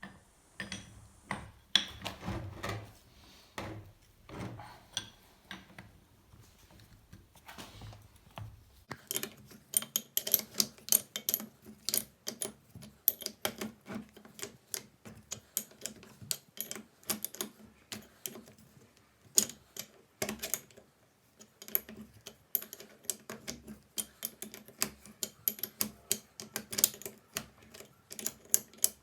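Hand work on a rusty steel vise: quick, irregular metal clicks and taps. There are a few duller knocks at first, and the clicking gets much denser from about nine seconds in.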